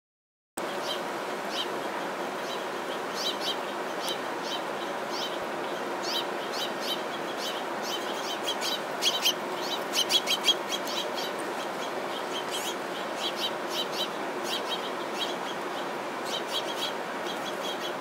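House finches chirping: many short, high chirps scattered throughout, coming thickest and loudest about nine to eleven seconds in, over a steady background hiss.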